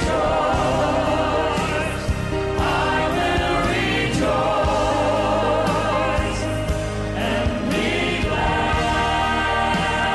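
Congregation and choir singing a gospel hymn with band accompaniment.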